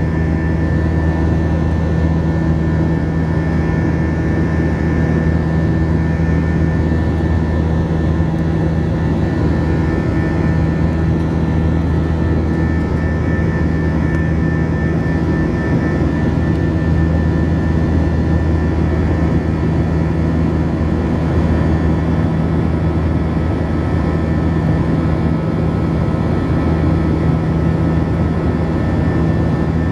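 Airbus A321's jet engines at climb power, heard inside the cabin beside the engine: a steady drone with a deep hum and a few steady tones over rushing air.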